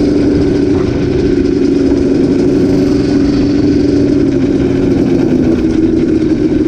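Yamaha Banshee 350's two-stroke twin engine running at a steady throttle, its pitch settling slightly lower about two-thirds of the way through.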